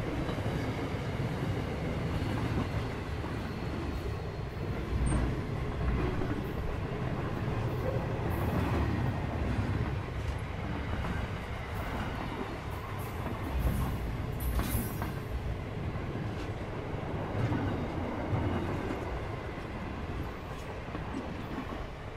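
Intermodal freight train's container wagons rolling past, a steady rumble of wheels on rail with scattered clatter. The sound eases near the end as the last wagon clears.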